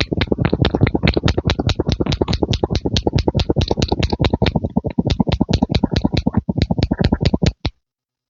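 Rapid, even pumping sounds, about five strokes a second, that stop abruptly near the end.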